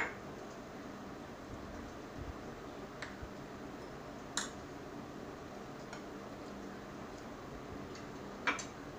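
A metal spoon stirring besan batter in a ceramic bowl, with a handful of light clinks of spoon and glass against the bowl, the loudest at the start and near the end, over a faint steady hum.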